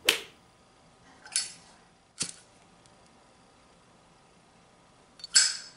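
Zippo-style windproof lighter being opened and lit: a click, then the metal lid flipped open with a ringing ping about a second in, a sharp strike of the flint wheel, and another ringing metallic clink near the end.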